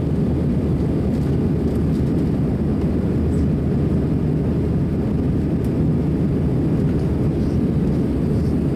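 Steady cabin noise inside an Airbus A320 climbing out: a low, even rumble of the jet engines and air rushing past the fuselage.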